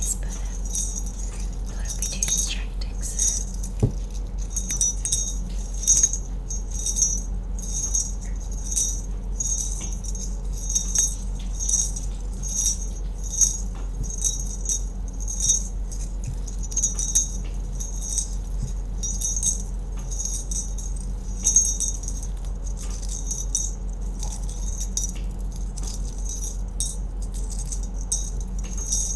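Small silver jingle bells shaken in short, repeated jingles, about one or two a second, with a bright, high metallic ring.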